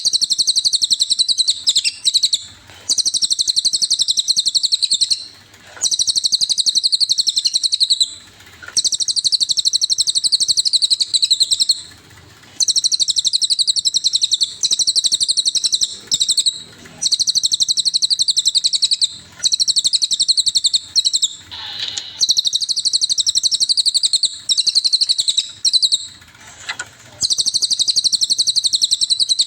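Cililin bird singing: long, high, rapid trilling phrases of a few seconds each, repeated one after another with brief pauses between them.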